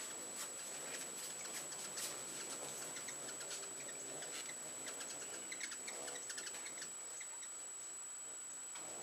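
Ruby-throated hummingbirds chittering: a busy run of sharp, high chip notes and squeaky twitters, thickest in the middle.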